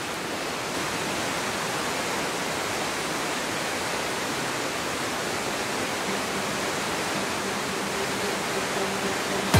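Whitewater cascade of a mountain waterfall, water rushing steadily over the rocks.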